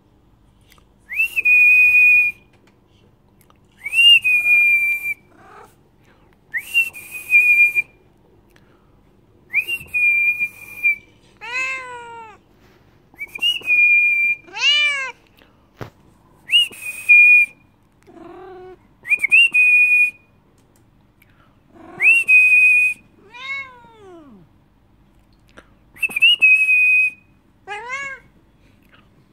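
A person whistling one loud, high note over and over, each a quick upward swoop held for about a second, roughly every three seconds. Between the whistles a domestic cat answers with about four drawn-out meows that rise and fall in pitch.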